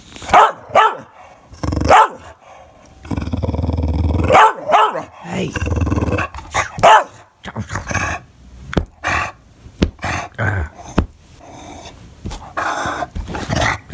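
English bulldog throwing a fit, a string of high whiny yelps and barks mixed with low grumbling growls, busiest in the first half and tapering to shorter, quieter calls. It is the Ewok-like fussing of a dog that wants attention and someone to play with him.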